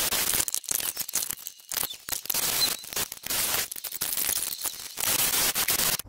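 Wire wheel spinning on a cordless drill, scrubbing the metal parts of a 1955 Willys inner door latch clean: a harsh, scratchy rasp that comes and goes in short, irregular bursts as the wheel is pressed on and eased off the part.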